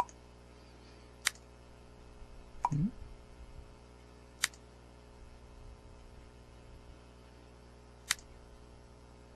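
Computer mouse button clicks, about five single sharp clicks spaced irregularly, with a long gap before the last, over a faint steady hum.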